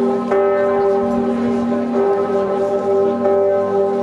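Church bells ringing, their overlapping tones humming on steadily, with a fresh strike shortly after the start.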